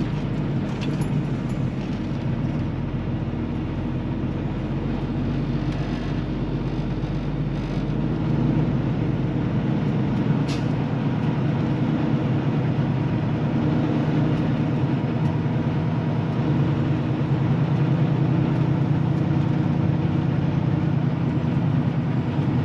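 Semi-truck's diesel engine running steadily as the truck drives, heard from inside the cab; it grows louder about eight seconds in, and a single sharp click sounds about ten seconds in.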